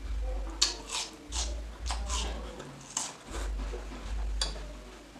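Biting into and chewing a slice of fresh watermelon close to the microphone: a string of short bite and slurp noises, the sharpest about half a second in.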